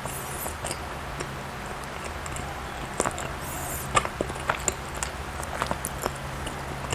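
Close-up eating sounds: chewing, with scattered soft mouth clicks and smacks, over a steady low hum.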